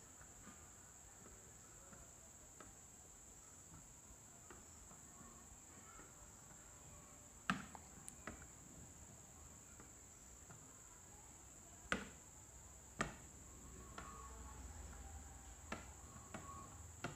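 Very quiet room with a steady faint high whine, broken by a handful of sharp taps of a stylus on an interactive touchscreen board as lines are drawn; the clearest taps come about seven and a half, twelve and thirteen seconds in.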